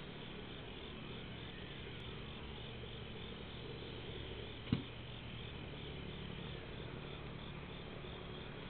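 Night insects chirping in a steady, evenly repeating pulse, with one short knock about halfway through.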